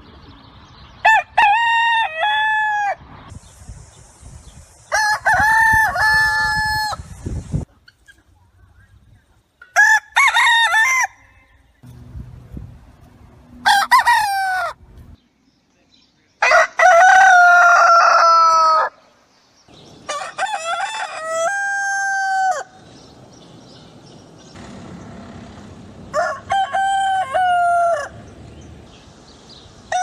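Rooster crowing about seven times, each crow a drawn-out cock-a-doodle-doo lasting one to two and a half seconds, at varying pitches and with irregular gaps between them.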